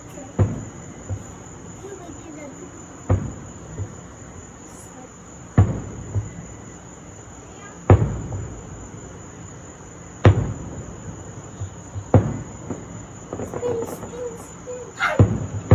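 Fireworks shells bursting overhead: about seven loud booms a couple of seconds apart, each trailing off in a rumble, with a few smaller pops between. Crickets chirp in a steady high trill underneath.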